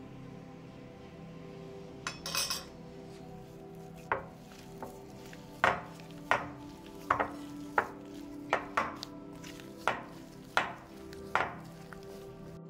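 Hands kneading a mashed bean burger mixture in a glass mixing bowl, knocking against the glass about ten times at uneven intervals from about four seconds in, over steady background music.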